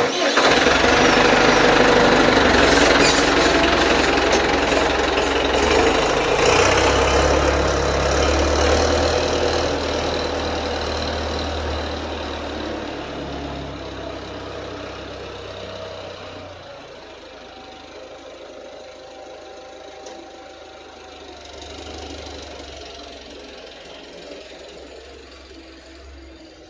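Ford 5610s tractor's diesel engine running loud with the extra exhaust noise of a cracked exhaust manifold. It starts abruptly and is loudest for about the first ten seconds, then falls away gradually to a quieter steady run.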